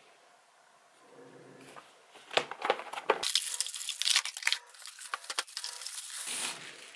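Plastic packaging bags crinkling and crackling as items are lifted out of a cardboard box during unboxing. The crinkling starts about two and a half seconds in and dies down near the end.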